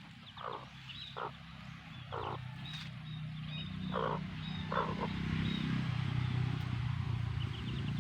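Hen clucking five short times, with chicks peeping faintly and high over a steady low rumble that grows louder after the middle.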